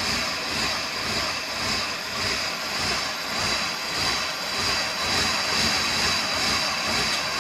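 Starter motor cranking a 1987 GMC Suburban's engine over steadily without it catching. This is a hard cold start, which the owner links to the engine having overheated.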